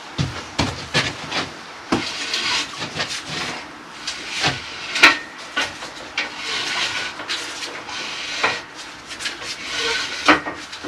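Steel Acrow prop being wound tighter by hand to jack a steel beam up: irregular metal clicks and knocks with stretches of scraping.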